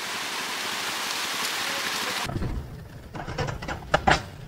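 Steady hiss of water that cuts off abruptly about halfway through. A motorcycle engine then runs with a low rumble while riding, with a few sharp knocks.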